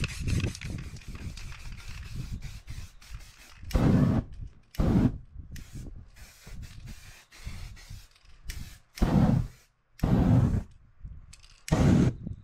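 A spray paint can hisses as paint goes on, fading out after about two seconds. Then the wet paint is set alight and flares up five times in short whooshes of flame, each about half a second.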